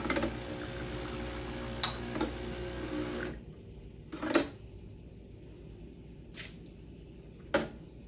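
Breville espresso machine's 15-bar vibratory pump buzzing steadily, then cutting off abruptly about three seconds in. Afterwards, a few sharp knocks of a glass on the metal drip tray, the loudest just after the pump stops and another near the end.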